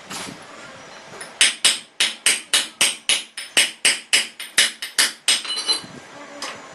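Rapid hammer blows on metal, about four a second for around four seconds, with a brief ringing note as they stop.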